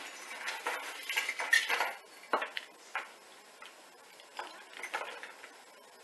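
Christmas decorations being handled: fairy-light string and artificial tree rattling, with plastic clicks and rustling that are busiest in the first two seconds, then a few separate clicks and knocks.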